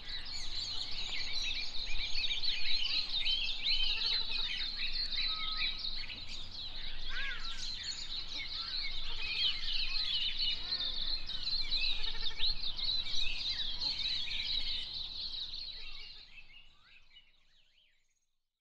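Dense chorus of many small birds chirping and twittering, fading out over the last few seconds.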